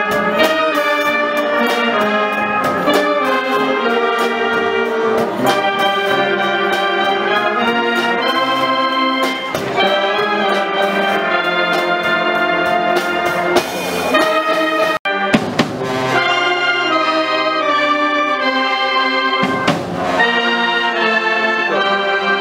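Wind band playing a piece with trumpets and trombones to the fore and other brass over a drum kit. The music breaks off for a split second about two-thirds of the way through.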